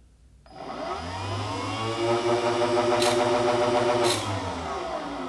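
The two DC motors of a homemade ball launcher spin up their launch wheels with a rising whine, run steadily, then wind down near the end: a test run triggered by simulating a ball at the ball sensor. Two sharp clicks come about three and four seconds in.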